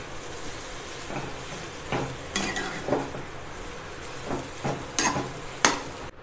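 Steel spatula stirring and scraping mashed potato and vegetable samosa filling in a steel kadai, with scattered sharp scrapes and clicks against the pan over a faint sizzle.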